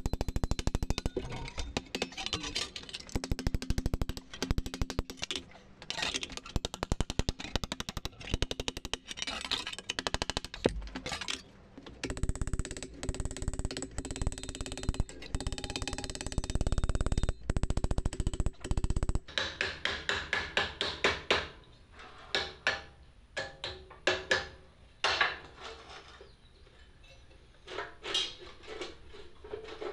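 Rapid, repeated hand-hammer blows on sheet steel as it is dished and bent, with the anvil ringing under the blows while the steel is worked over its horn. Later the hammering stops, giving way to lighter, scattered taps and clinks of hand work on a steel pipe.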